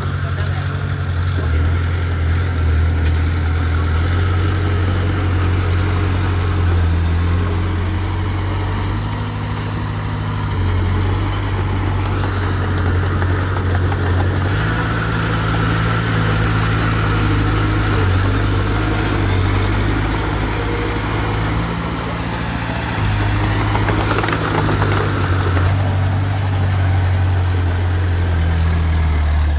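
Heavy earthmoving machine's diesel engine running steadily with a deep low note, which shifts in pitch several times as the machine works. Harsher mid-pitched stretches come in about halfway through and again near the end.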